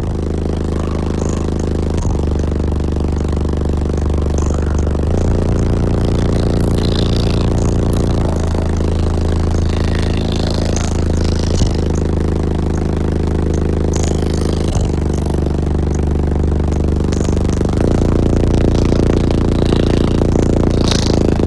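Very loud bass from a car's six 15-inch Sundown ZV5 subwoofers playing long low notes that change every few seconds, with the car's panels and trim rattling against it.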